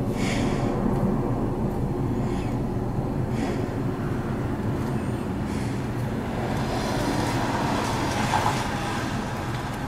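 A steady low mechanical hum that swells for a few seconds near the end, with a few faint clicks of small metal carburetor parts being handled.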